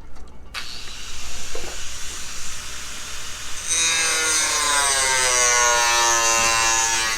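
A power tool cutting, starting about half a second in. From about halfway a motor whine joins the cutting noise, its pitch slowly falling as it works under load.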